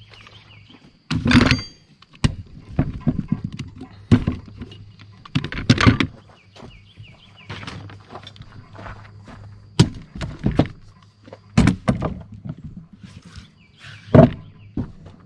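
Irregular knocks, clanks and thuds of hand tools and clamps working a sub-compact tractor's front tire bead onto its steel rim by hand. A heavy half-second clatter comes about a second in, and further loud hits follow every few seconds.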